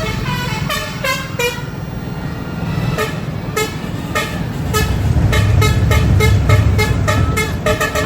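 Strasbourg tram's warning horn sounding a string of short pitched toots: a few falling notes at first, then rapid repeated toots about twice a second. A low rumble of the tram running swells in the middle.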